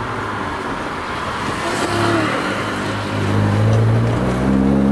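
Car engine running with tyre and road noise, heard from inside the cabin while driving; the engine note grows stronger and rises in pitch near the end as the car accelerates.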